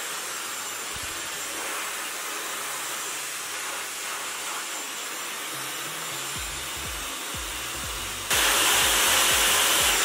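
Dyson Supersonic hair dryer blowing steadily: a rushing of air with a faint high whine, some low rumbling from about six seconds in, and a sudden jump in loudness about eight seconds in.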